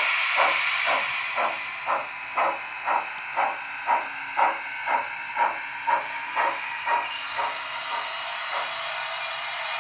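Steam-locomotive sound from the Loksound V5 decoder in an HO-scale Southern Pacific cab-forward model: exhaust chuffs about two a second over a steady hiss. The chuffs fade out about eight seconds in, leaving the hiss.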